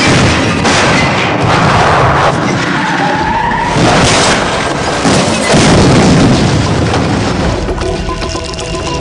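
Car crash: heavy crunching booms and skidding as a car slams into another and tumbles over it, in several loud surges, with a short squeal near the middle. Steady tones come in near the end.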